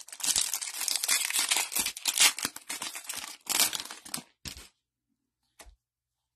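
Wrapper of a 2022 Panini Prizm football card pack being torn open and crinkled by hand, a dense crackling for about four and a half seconds that stops, with one small tick near the end.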